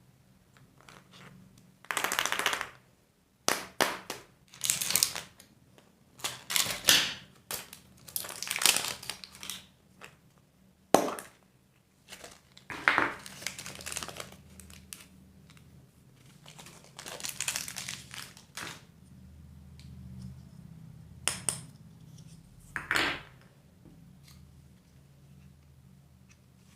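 Wrappers crinkling and rustling in irregular bursts as surprise eggs are unwrapped by hand, with a few sharp clicks, the sharpest a little before halfway.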